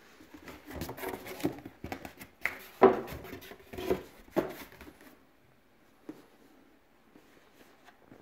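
Cardboard boxes being handled, a shoebox taken out of a shipping carton: a run of knocks, scrapes and rustles lasting about four seconds, with the loudest thud a little before three seconds in.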